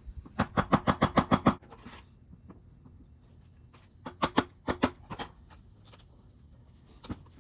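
Quick runs of sharp metallic taps as a screwdriver is driven into the edge of a golf cart tire along the rim, punching holes for a pry bar to break the bead. About nine fast taps come first, then about five more a few seconds later, and one near the end.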